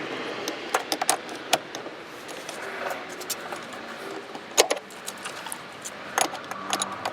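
Hand tools clinking and knocking against metal in irregular sharp clicks, as a stripped screw on a Jeep heater box is worked loose with vise grips and a wrench.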